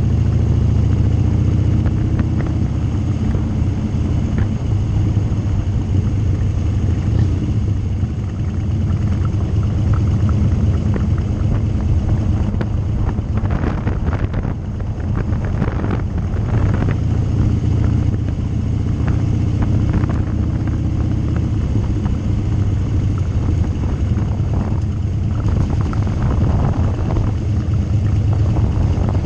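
Harley-Davidson Street Bob's V-twin engine running under way at road speed, a steady deep rumble whose pitch shifts a little with the throttle, dipping briefly in loudness about halfway through.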